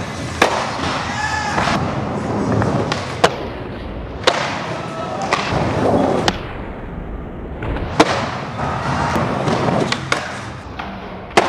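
Skateboard wheels rolling on the hard floor of an indoor skatepark, broken by several sharp smacks and clacks of boards popping, hitting ledges and landing.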